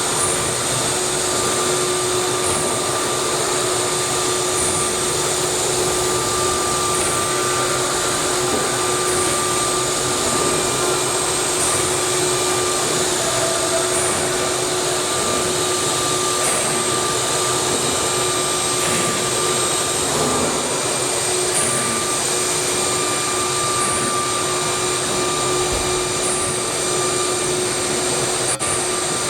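CNC router running: a steady, loud machine noise with a held high-speed spindle tone over it, unchanging throughout.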